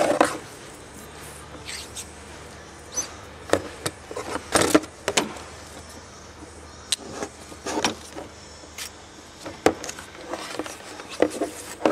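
Irregular clicks, knocks and rustles of plastic and metal fittings being handled: a cooling-system pressure tester's hand pump, hose and expanding-bladder adapter being fitted onto a car's coolant expansion tank.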